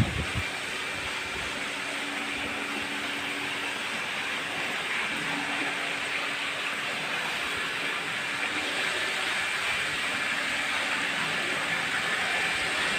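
Steady rush of running, splashing water, with a faint steady hum beneath it, growing slightly louder toward the end.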